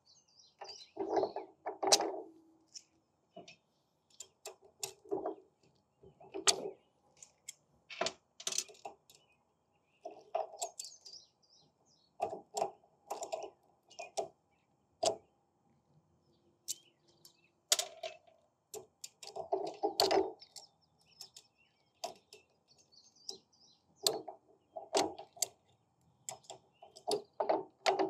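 Hand work on a triplex pump's top valve ports: pliers and small valve parts clicking, clinking and scraping as the check valves are pulled from their seats, in irregular short bursts throughout.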